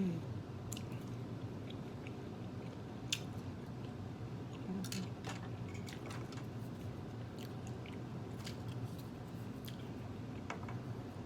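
Close-miked chewing of food, with small wet mouth clicks and squishes scattered throughout over a steady low hum.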